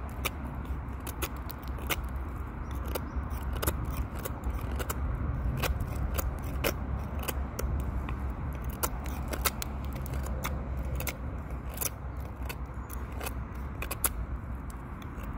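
Fixed-blade bushcraft knife (Sanrenmu Poised) whittling a wooden stick to a point: a series of short, sharp shaving cuts at an irregular pace, roughly twice a second. A steady low rumble runs underneath.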